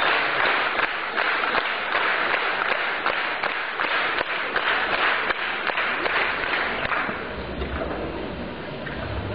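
Concert hall audience applauding, a dense patter of many hands that dies down about seven seconds in, leaving a low rumble.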